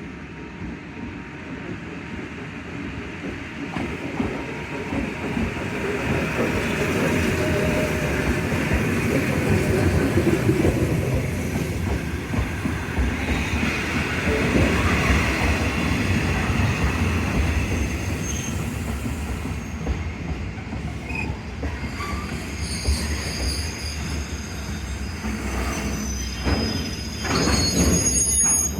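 Electric train running on the rails, wheel and track rumble building and holding steady, with high metallic squeals coming in over the last several seconds as it slows.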